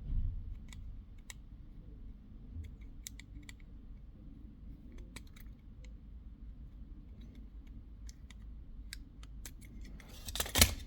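Scattered light clicks and snips of small hand tools working on a thermostat's circuit board as a faulty disc capacitor is taken out, with a louder handling rustle near the end.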